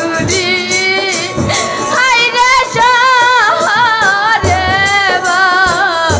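A woman singing a Bengali bicched folk song, holding long notes with a wide vibrato, over a drum and string accompaniment.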